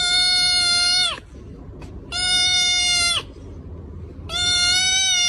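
An animal crying out three times, each cry long and held at one steady high pitch before dropping off at its end.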